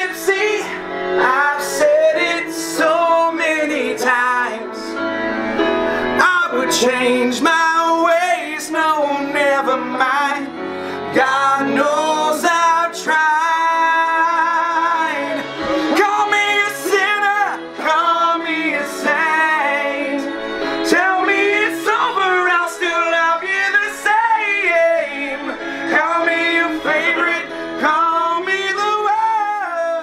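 A song: a voice singing over instrumental backing.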